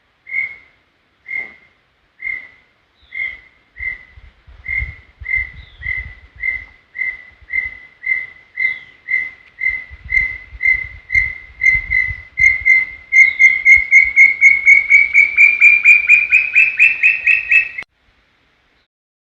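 Brown tinamou (inhambuguaçu) singing: a long series of single whistled notes, at first about a second apart, then coming faster and faster, growing louder and rising slightly in pitch toward the end before stopping abruptly.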